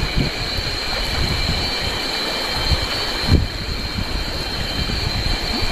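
Cicadas keep up a steady, high, even drone. Under it the shallow river rushes over stones and wind buffets the microphone.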